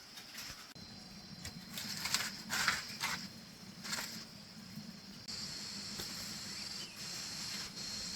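Water being scooped out of a flooded floor: a run of short splashing, scraping strokes, loudest about two to four seconds in, over a steady high hiss.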